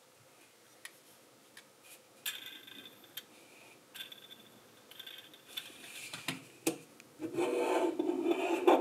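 Plastic LEGO parts rubbing and clicking as the finished propeller plane model is handled. A few light clicks come first, then rasping rubs from about two seconds in, which grow louder and steadier near the end.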